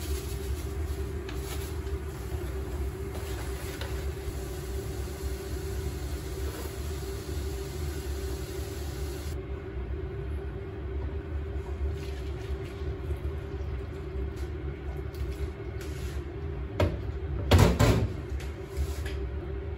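Kitchen cooking sounds at a gas stove: a steady low hum under the hiss of the lit burner and steaming pot, and the hiss stops abruptly about nine seconds in. Near the end comes a short clatter of a pot and utensils, the loudest sound.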